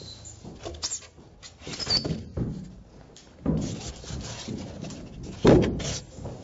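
Expanded polystyrene ICF foam blocks being handled and pressed into place: irregular rubbing scuffs and hollow knocks of foam against foam. The loudest knock comes about five and a half seconds in.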